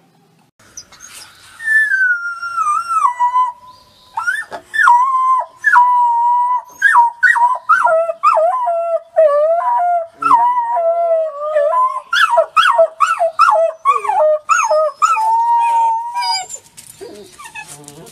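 Two wolf pups howling together. One long falling howl comes first, then two voices at different pitches howl over each other in short, wavering, broken notes with yips, and stop shortly before the end.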